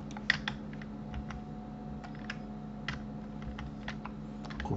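Computer keyboard keys and mouse buttons clicking, about a dozen short taps spread unevenly, the sharpest about a third of a second in, over a steady low electrical hum.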